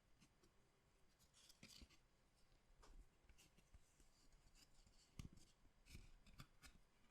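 Faint handling of collectible card packs and cards: a short rustle of packaging about a second and a half in, then scattered soft clicks and taps, the loudest about five seconds in.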